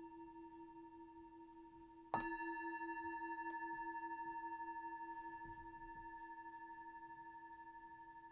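Meditation singing bowl ringing from an earlier strike, then struck again about two seconds in. Its tone rings on with a steady wobble and fades slowly. The bell marks the close of a meditation sitting.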